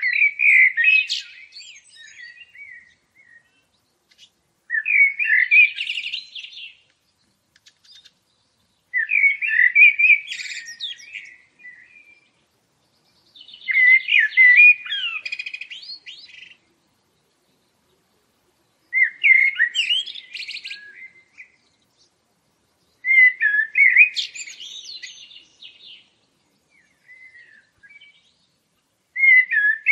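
A songbird singing: short phrases of quick chirps and whistles about two seconds long, repeated every four to five seconds with silence between.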